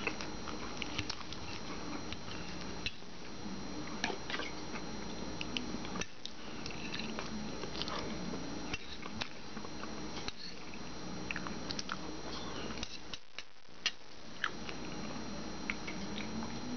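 A person chewing food close to the microphone, with soft mouth noises and many small, scattered clicks, over a faint steady hum.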